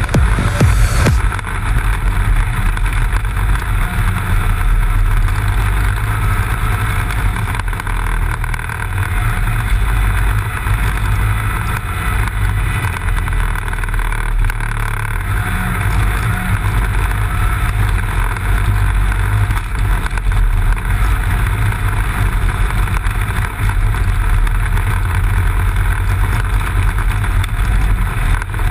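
Snowmobile engine running steadily as the sled rides along over packed snow.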